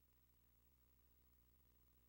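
Near silence, with only a faint steady low hum.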